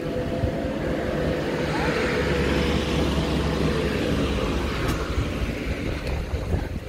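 A passing vehicle: engine noise that swells to its loudest about two to three seconds in, then fades.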